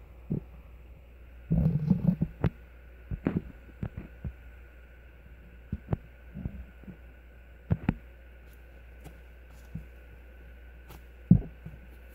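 Foam squishy toys being squeezed and handled by hand: irregular soft thumps and squishing noises, busiest about two seconds in, with one sharper knock near the end, over a faint steady hum.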